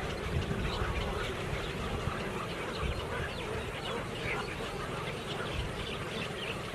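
A large colony of waterbirds calling all at once, a dense chatter of many short, overlapping calls with no gaps, over a steady low rumble.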